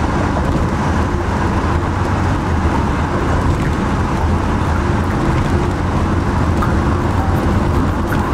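Steady road-traffic noise: a continuous low rumble of passing vehicles.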